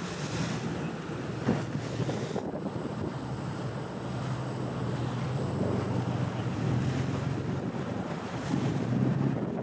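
Wind buffeting the microphone over the rush of the sea and a boat's wake, with a low steady engine hum beneath.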